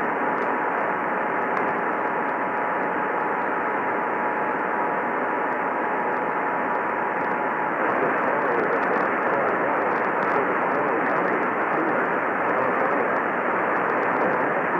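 Weak, distant radio reception of an emergency alert: steady static hiss with a faint two-tone alert signal under it, which stops about eight seconds in while the static carries on.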